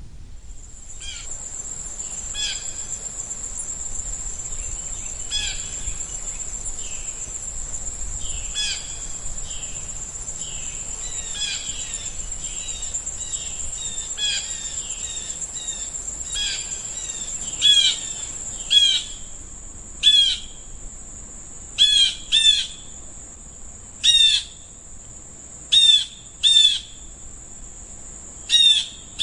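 Blue jays giving harsh, descending jay calls: faint and frequent at first, then loud calls from just past halfway, often in pairs about every two seconds. A steady high-pitched insect drone runs underneath.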